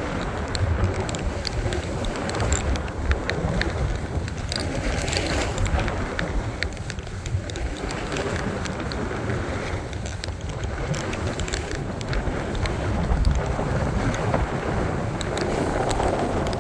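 Wind buffeting the microphone: a steady low rumble under a rushing hiss, with faint scattered ticks.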